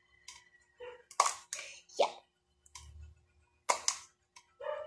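Kitchen knife cutting through crisp water spinach stems onto a plastic cutting board: a few short, sharp snapping cuts at irregular intervals, the loudest about a second in, two seconds in, and a close pair near the end.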